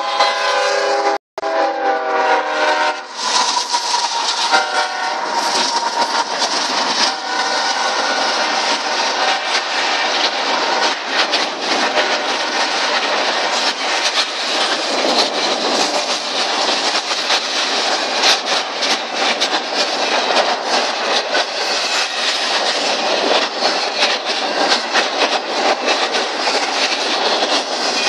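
Freight train horn sounding a sustained chord for the first few seconds. After that, the intermodal train's cars roll past with steady wheel rumble and clattering over the rails.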